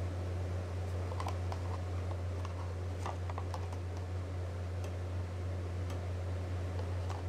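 Ice cream roll machine's cold plate, its refrigeration unit humming steadily, with scattered light clicks and ticks as the ice cream rolls are handled.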